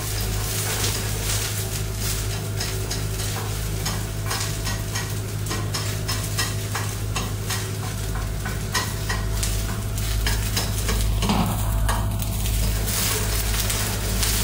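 Chopped onions sizzling in a frying pan on a gas burner, with the repeated clicks and scrapes of a utensil stirring them, over a steady low hum.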